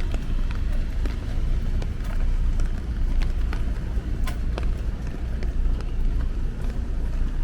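City street in the rain, heard while walking: a steady low rumble under scattered sharp taps and drips.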